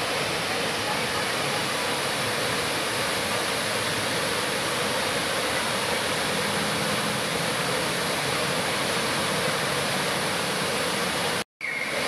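Looking Glass Falls, a waterfall plunging off a cliff into its pool, giving a steady, even rush of falling water. The sound cuts out for a moment near the end.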